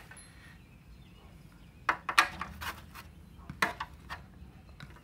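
A scatter of short sharp clicks and knocks, a handful of them from about two seconds in, from hard parts being handled while the pull-start rope is restrung.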